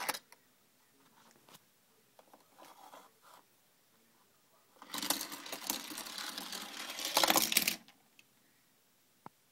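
Hot Wheels Car Wash plastic playset being worked by hand, with die-cast cars: a few light plastic clicks, then about three seconds of rapid rattling clatter that is loudest near its end, and a single sharp click near the end.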